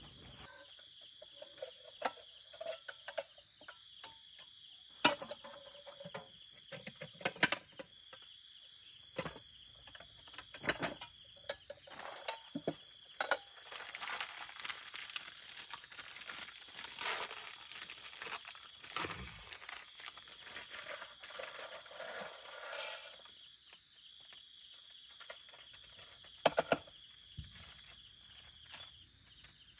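Night insects such as crickets chirring steadily and high-pitched, with close rustling and crinkling and scattered sharp clicks over it, thickest in the middle of the stretch.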